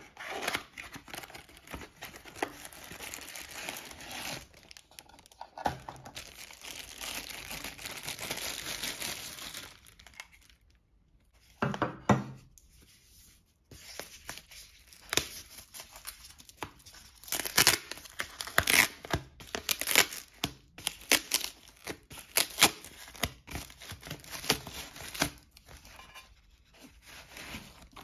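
Packaging being opened by hand: a cardboard box rubbed and slid for several seconds, then a woven plastic bag crinkled and torn open, with many sharp crackles and rustles.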